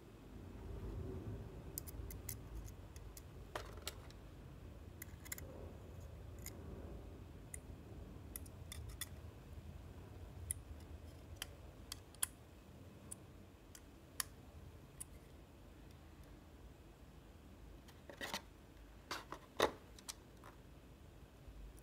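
Faint handling of the small Proxmark3 Easy circuit boards and a precision screwdriver: scattered sharp clicks and taps, with a low rubbing rumble for the first couple of seconds and a quick run of louder clicks near the end.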